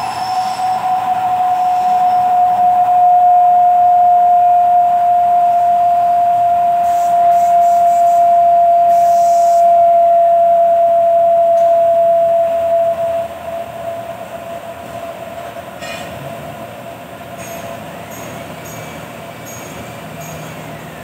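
Milling machine cutting aluminium: a loud, steady squealing whine that slowly sinks in pitch, then drops off to a much weaker whine about thirteen seconds in.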